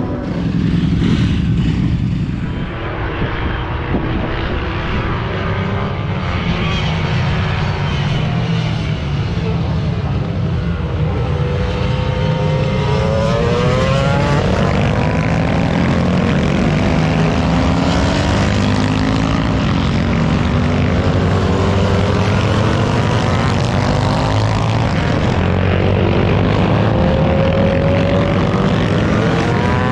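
A pack of historic racing motorcycles running on the circuit, several engines sounding at once, their pitch rising again and again as riders accelerate through the gears out of the bend.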